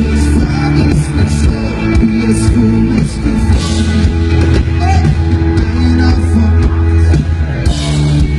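Live pop-rock band playing loudly through a concert PA: electric guitar over a steady bass line.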